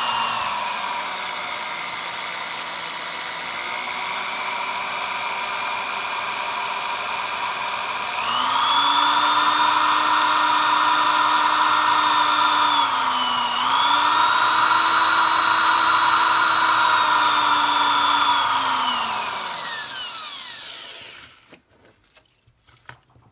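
Electric drill with a small 5/64-inch bit boring a pilot hole into the rivet of a die-cast toy car, its motor whining steadily. About eight seconds in it speeds up to a higher, louder whine, dips briefly around the middle, then winds down with falling pitch and stops near the end.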